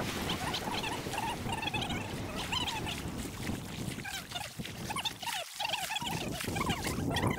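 Wildlife calling: clusters of short, repeated chirps over a steady low background noise.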